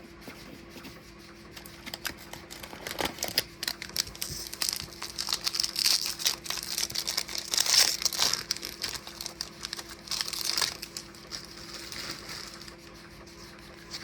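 A foil Topps baseball card pack being torn open, its wrapper crinkling and crackling in a run of rustling from about two seconds in until about eleven seconds in.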